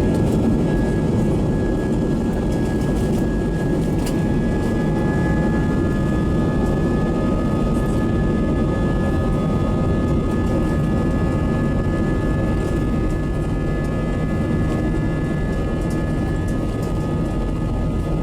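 Airbus A320 cabin noise in flight: a steady rumble of engines and airflow with a faint steady whine, unchanging throughout.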